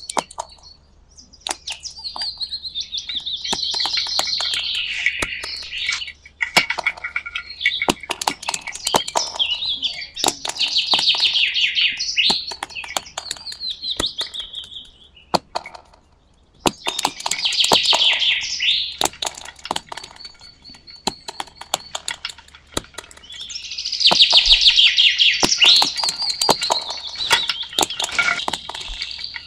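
Bird-like chirps and rapid trills in phrases of a few seconds, separated by short gaps, with many sharp clicks scattered throughout.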